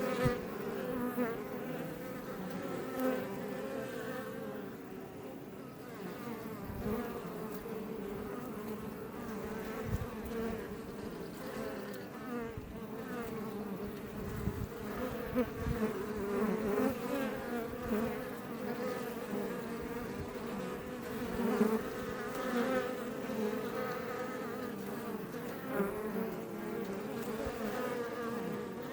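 Iberian honey bees buzzing en masse outside a Langstroth hive: a steady, wavering drone with brief louder swells now and then.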